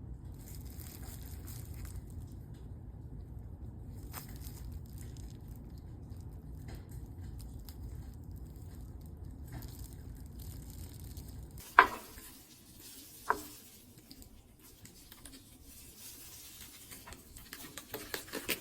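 A steady low hum, which stops about two-thirds of the way through. Then comes a sharp clack, a second one a moment later, and light tapping and scraping of kitchen utensils against a bowl near the end.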